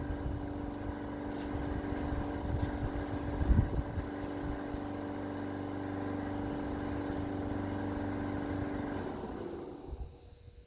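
A motor running steadily with a constant hum, with a few knocks and clatters about three and a half seconds in; near the end it switches off and winds down.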